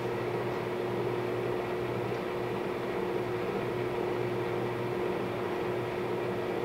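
Colchester Mastiff 1400 engine lathe running under power: a steady hum from its geared headstock and main drive motor, with a constant whine held through.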